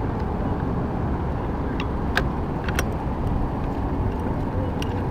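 Steady rumble of road traffic, with a few short sharp clicks: three spread through the middle and one near the end.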